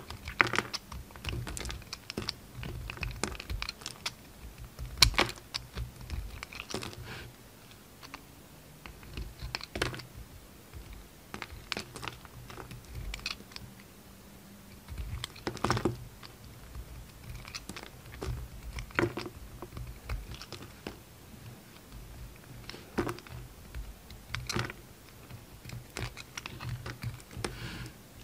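Utility-knife blade cutting and shaving a bar of soap: irregular crisp scrapes and crunches as pieces and flakes break off, a few of the cuts louder than the rest.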